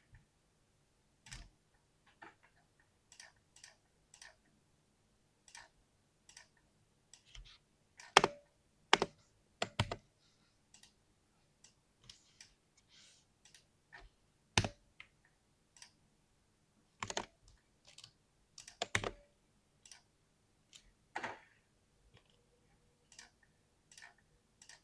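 Mechanical keyboard keys pressed one or a few at a time at an uneven pace, sharp clicks with pauses between them. A handful of strokes in the middle are much louder clacks.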